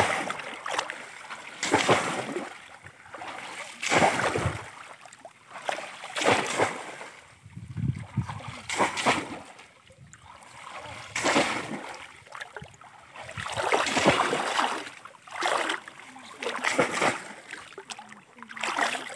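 Repeated splashing as conical bamboo fish traps are plunged and pushed through shallow muddy water, a rush of water every second or two.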